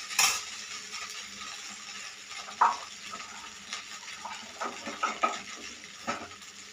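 Steel slotted ladle scraping and clinking against an iron kadai of cooked rice. There are scattered sharp metal clinks, the loudest about two and a half seconds in, over a faint steady hiss.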